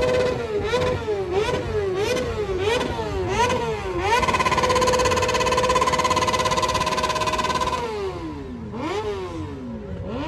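Motorcycle engine revved hard in quick blips, rising and falling about six times, then held at high revs for nearly four seconds before dropping back, with two more blips near the end.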